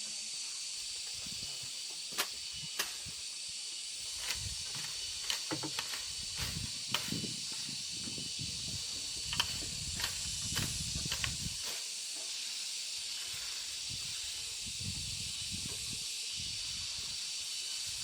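A steady high-pitched hiss with a faint thin whine in it, and scattered light knocks and taps through the first two-thirds.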